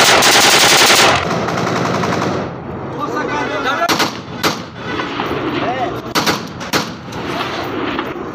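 Kalashnikov-pattern assault rifle firing into the air in a rapid full-auto burst that stops about a second in. A few separate single shots from a rifle follow, with voices in between.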